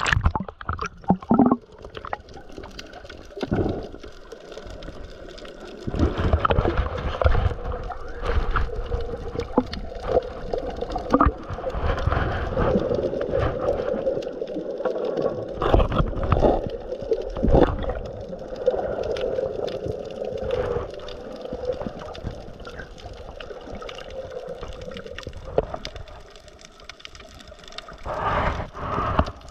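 Muffled water gurgling and sloshing, with scattered knocks.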